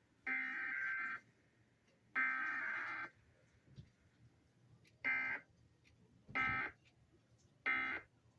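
Emergency Alert System required weekly test data bursts from a TV speaker, buzzy digital screeches. Two bursts of about a second each, the coded header, are followed by three short bursts about a second and a half apart, the end-of-message code.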